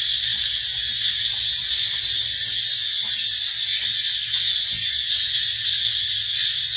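A steady, loud, high-pitched insect chorus that drones on without a break.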